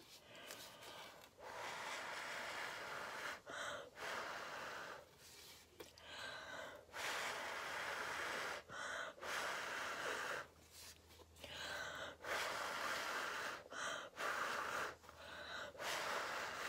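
A person blowing hard in a string of long blows onto wet acrylic paint, each lasting a second or two, with quick breaths between them. The air pushes the paint outward across a wooden panel in the fluid-art "blow" technique.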